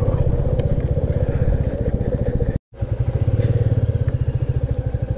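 Motorcycle engine running steadily, a rapid even train of low exhaust pulses, broken by a split-second gap of silence about halfway through.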